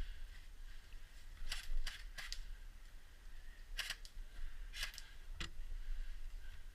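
Airsoft guns firing single shots: about half a dozen sharp snaps at irregular intervals, the first about a second and a half in.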